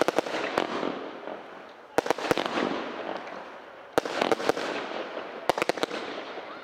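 Sky Crafter 'Raging Inferno' firework cake firing: a cluster of sharp bangs roughly every two seconds as the shots launch and break, each trailed by a fading hiss.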